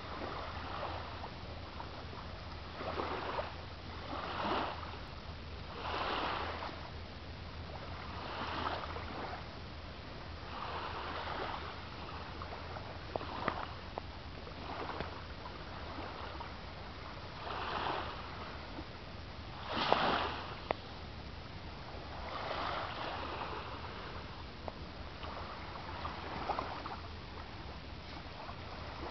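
Small waves washing onto the beach: a soft rush of surf every two to three seconds, some of them ending in a sharper splash, over a steady low hum.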